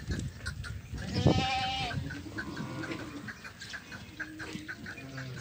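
Goats bleating: one loud, wavering bleat about a second in, and a shorter, lower bleat later.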